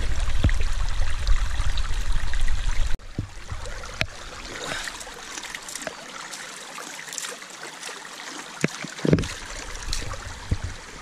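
Mountain stream running over stones, an even rush of water, with a few sharp knocks, the strongest a little after nine seconds in. A loud low rumble on the microphone covers the first three seconds and cuts off suddenly.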